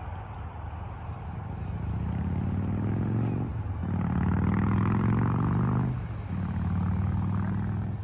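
A passing road vehicle's engine accelerating hard. It rises in pitch, then drops and climbs again at two gear changes, about three and a half and six seconds in.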